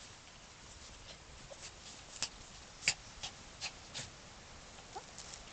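Miniature pinscher digging at a rat hole: irregular scratching and scrabbling of paws in soil and dry leaves, with a cluster of louder scrapes in the middle.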